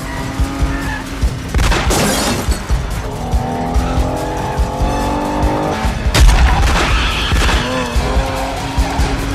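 Action-film car chase soundtrack: car engines revving hard with tyres squealing, cut by sharp bangs about 2 and 6 seconds in, over a music score.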